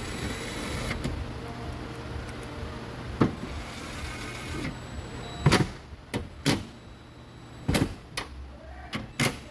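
A small motorised tool whirs steadily for about four and a half seconds, fastening the nuts on the tailgate handle-switch housing, then stops. A string of sharp clicks and knocks from the tool and the plastic parts follows.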